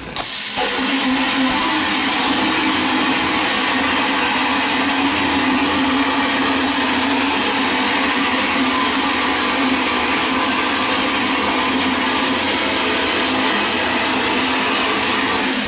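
Vapor blasting gun spraying a compressed-air blast of water-and-abrasive slurry inside a blast cabinet, cleaning a plastic carburetor choke lever: a loud, steady hiss with a low hum beneath it. It starts suddenly and cuts off suddenly at the end.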